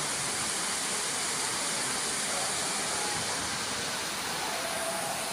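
A steady, even rush of water, the sound of flooding or heavy rain, with no breaks or single impacts.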